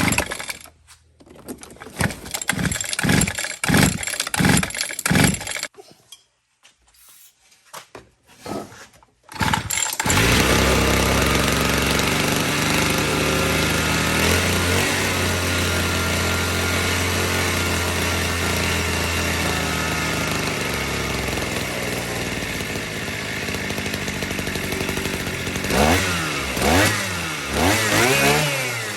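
Small two-stroke engine with a freshly fitted carburetor being started: several short rhythmic cranking tries, then it catches about ten seconds in and runs steadily. Near the end it is revved up and down a few times.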